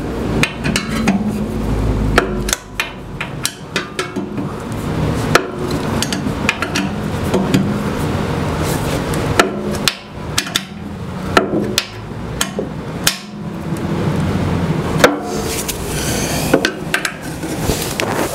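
Irregular metal clicks and knocks from a socket wrench working bolts inside the Ridgid R4512 table saw's cabinet, as the bolts are tightened down.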